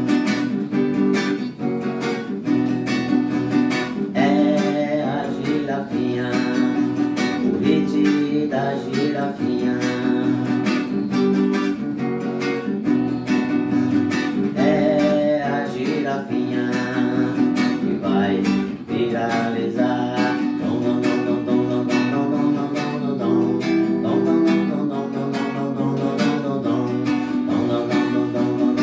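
Background music of a song with a steady beat, in a stretch where no lyrics are sung.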